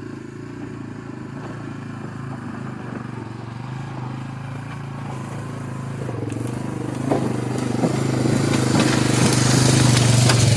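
Three-wheeler engine running steadily and getting louder as it comes closer. From about two-thirds of the way in there are sharp cracks, like brush and sticks snapping under the tires.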